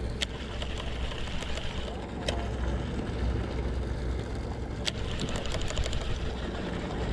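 Shimano Curado baitcasting reel being cranked to retrieve a lure, with three sharp clicks and a quick run of fine ticks about five seconds in. Under it is a steady low rumble from the boat.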